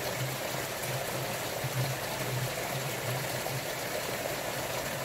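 Rainwater rushing down a downpipe made of joined clear PET plastic bottles, a steady watery rush. A low hum comes and goes over the first three and a half seconds.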